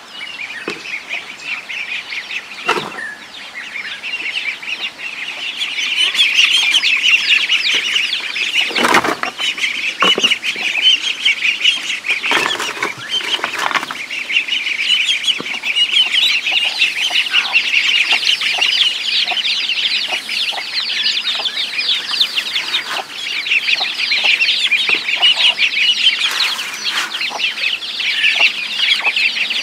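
A flock of ducklings peeping rapidly and continuously as they crowd around to be fed, getting louder from about six seconds in, with some clucking from chickens. A few short knocks and thumps come in the first half.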